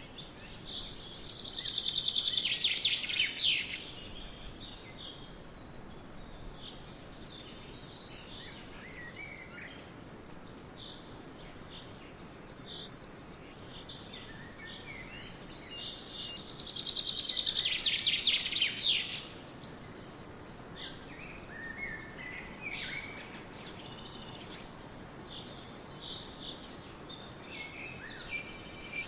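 Forest birdsong: one bird sings a loud, rapid trill of quick repeated high notes, about two seconds long, twice about fifteen seconds apart, with quieter chirps and calls from other birds in between over a steady background hiss.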